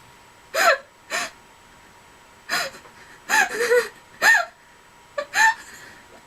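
Breathless, wheezing laughter: a string of short, high-pitched gasping squeals in uneven bunches, each with a quick swoop in pitch, like someone laughing too hard to breathe.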